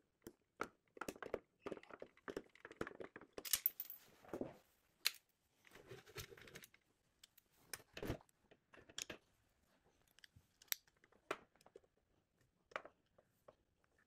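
Square-bit screwdriver backing out the rear housing screws of a KitchenAid tilt-head stand mixer: faint, scattered clicks, ticks and short scrapes of the bit and screws, with handling rustles and a soft knock about eight seconds in.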